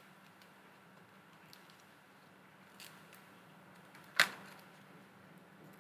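Fingernail picking the backing strips off the double-sided tape on a thin plastic calculator keyboard template: a few faint ticks, then one sharp click about four seconds in.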